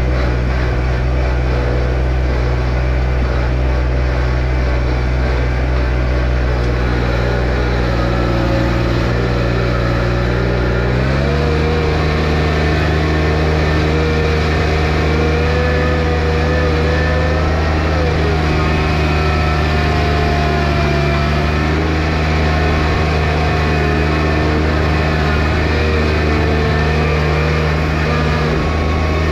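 John Deere 1025R compact tractor's three-cylinder diesel engine running steadily. About eleven seconds in its speed rises quickly to a higher, steady pitch.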